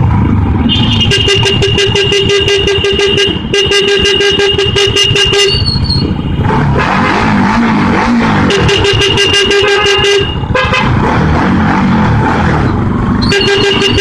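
A vehicle horn sounds in four long steady blasts of one to three seconds each, the last starting near the end. Beneath it a motorcycle engine runs, its pitch rising and falling as it speeds up and slows in slow traffic.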